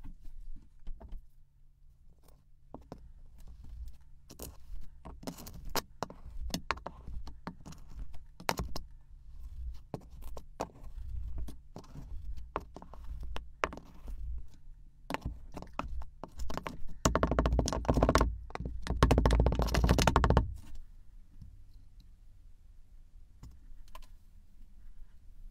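Kinetic sand being cut and crumbled in a clear container: a run of crisp crunches and ticks that thickens into dense, louder crunching for about three seconds after the middle.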